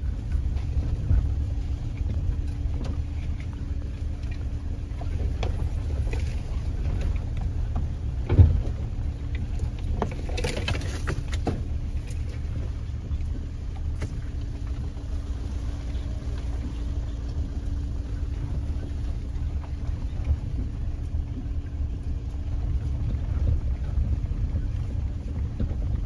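A vehicle driving slowly along a rough gravel farm track, heard from inside the cab. There is a steady low engine and tyre rumble with a faint steady hum over it, a single knock about eight seconds in, and a brief scraping rush of noise about two seconds later.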